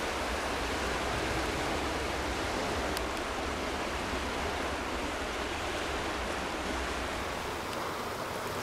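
Sea water washing against a rocky shore: a steady, even hiss with no breaks.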